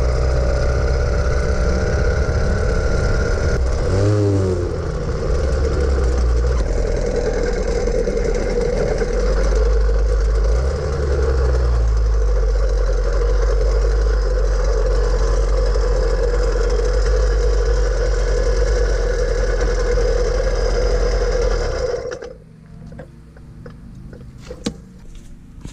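Small engine of a gas-powered motorized bicycle running while riding, with heavy wind rumble on the microphone and a pitch change around 4 seconds in. The engine and wind cut off sharply near the end, leaving a few light clanks.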